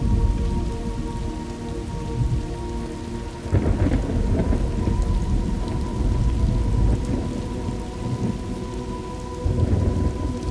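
Thunderstorm ambience: steady rain with rolling thunder. A thunder rumble breaks in suddenly about three and a half seconds in and rolls on for several seconds, and another swells near the end.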